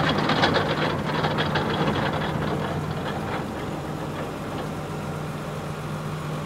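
Tractor engine running steadily with a low hum. A louder rushing, clattering machinery noise over it dies away over the first three seconds.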